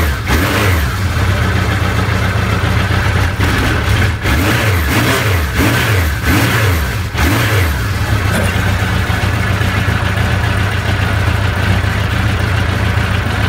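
Suzuki GSX1100S Katana's inline-four engine revved in several quick throttle blips, the pitch rising and falling each time. About eight seconds in it settles to a steady idle.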